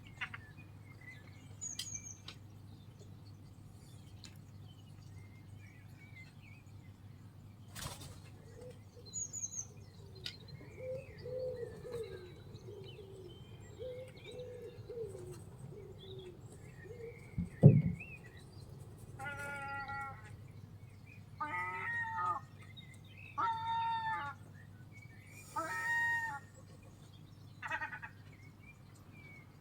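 Gulls calling: a run of about five drawn-out, strained calls, each about a second long, in the second half. Before them come faint chirps, a low warbling sound, and one sharp loud thump just ahead of the calls.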